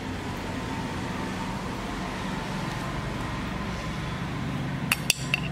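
Steady low background hum with a faint pitched drone, like a motor running in the room. About five seconds in come two or three sharp clicks of a metal spoon against the pizza pan while sauce is spread on the dough.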